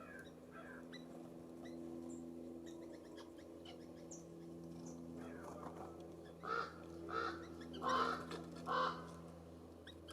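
A California scrub-jay giving four harsh, rasping calls in quick succession in the second half, over faint short chips of small birds.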